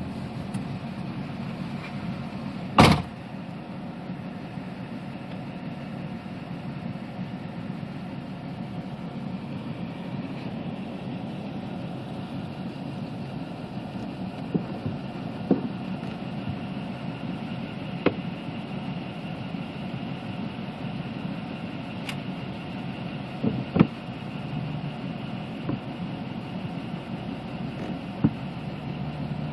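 Steady low rumble of a car with wind, with sharp taps now and then and one loud knock about three seconds in.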